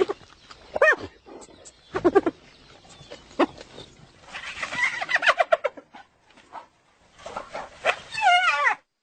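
Hyena calling: a few separate short yelps, then two runs of quick, stepped, falling notes, the giggling call often described as laughing.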